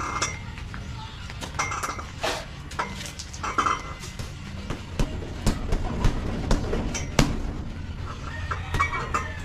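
Boxing gloves punching a hanging heavy bag: a string of thuds, spaced out at first and coming quicker and harder from about five seconds in.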